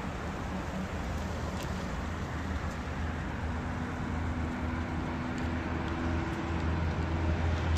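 Steady low rumble of motor vehicle engines, growing a little louder near the end, with a few faint clicks.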